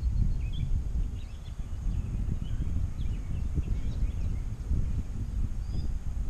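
Wind buffeting the microphone in an uneven low rumble, with scattered bird chirps behind it.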